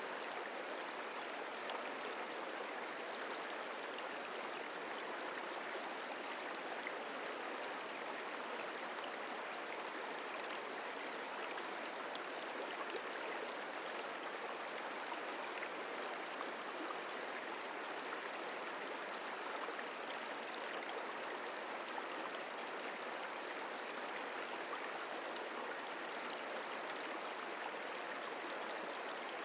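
The Merced River flowing: a steady rush of running water that stays even throughout.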